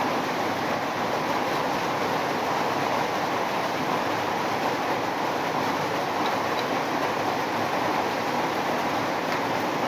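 A steady, even rushing noise with no rhythm or change.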